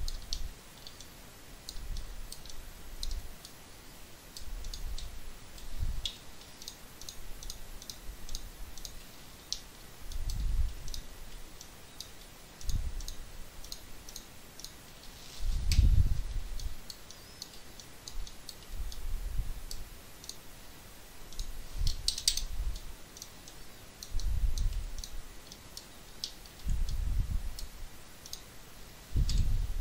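Computer mouse and keyboard clicking, in quick scattered clicks. Several louder low dull thumps fall among them at uneven intervals.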